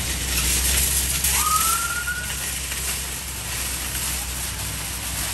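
Steady low rumble of vehicles, with a single short police siren chirp about a second in that rises quickly and then holds briefly.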